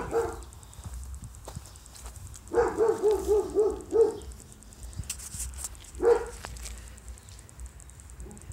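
A dog barking in high, quick yips: one at the start, a rapid run of about six in the middle, then one more a couple of seconds later.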